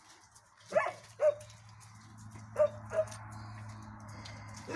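Dogs barking: four short barks in two quick pairs, over a low steady hum.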